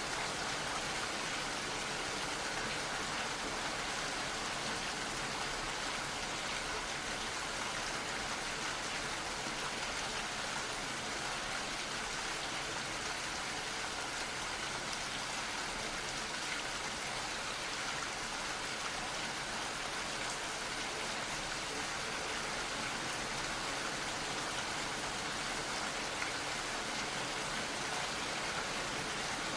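Gentle rain falling steadily, a soft even patter of drops.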